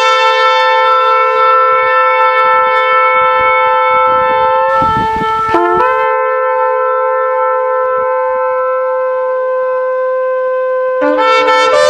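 A shofar (ram's horn) blown in long held blasts, with a bright, buzzy tone rich in overtones. About five seconds in the blast breaks into a breathy rush and a short rising note before the long tone resumes, and a fresh blast starts near the end.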